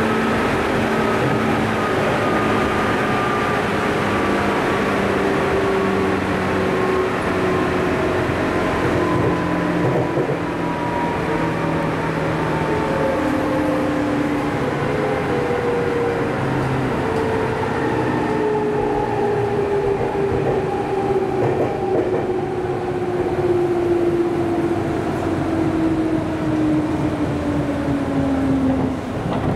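JR 205 series (0 subseries) electric train heard from inside the car at floor level: its traction motor and gear whine, several tones falling slowly and steadily in pitch as the train slows, over a steady rumble of wheels on rail.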